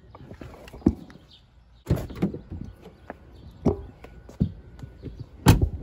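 A Ram 1500 pickup's rear cab door being handled: a few separate clunks and knocks, the loudest a sharp knock near the end.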